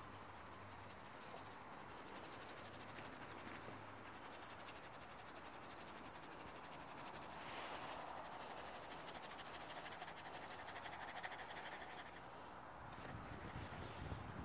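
Faint outdoor background hiss with no clear event. Near the end comes a low rumble of movement close to the phone.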